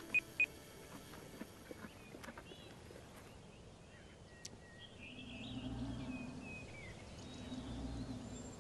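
Faint outdoor ambience with a few short high chirps at the start and scattered bird calls. From about halfway, a low rasping sound swells and fades twice in a slow rhythm: the snoring breaths of a sleeping brown bear.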